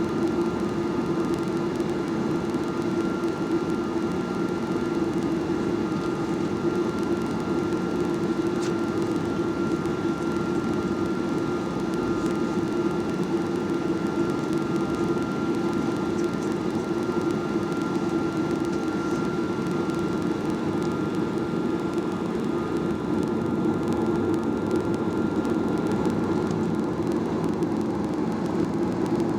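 Steady jet airliner cabin noise: the Boeing 737-800's engines and air conditioning heard from inside the passenger cabin, a constant hum with a faint high steady tone.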